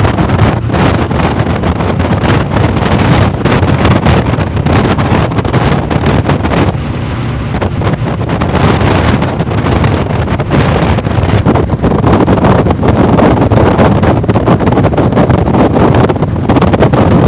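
Loud wind buffeting the microphone over a low vehicle rumble. It eases briefly about seven seconds in.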